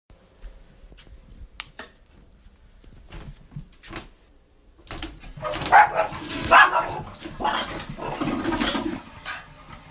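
A dog barking several times, after a few faint clicks.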